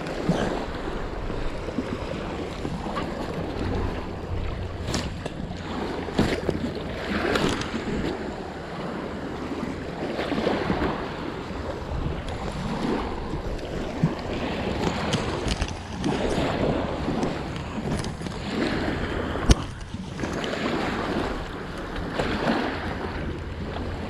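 Wind gusting on the microphone over small waves lapping, swelling and fading every second or two, with a couple of sharp clicks.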